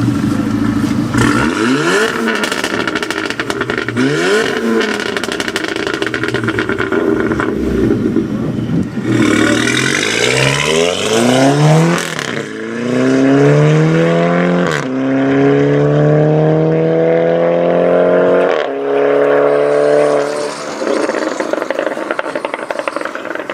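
Stage 1 Volkswagen Golf GTI Mk6's turbo four-cylinder through a straight-piped custom exhaust: two quick revs with popping and crackling, then a hard acceleration, the pitch climbing through three upshifts. It ends in more crackles as the throttle is lifted.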